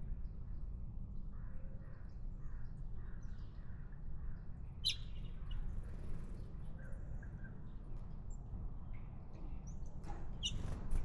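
Wild birds chirping and calling in short, scattered notes, with one sharper, louder call about five seconds in, over a steady low rumble.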